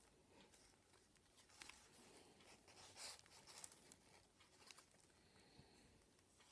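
Faint rustling and crinkling of a stiff kraft-paper origami model being handled and turned in the hands, in short scattered bursts, loudest about halfway through.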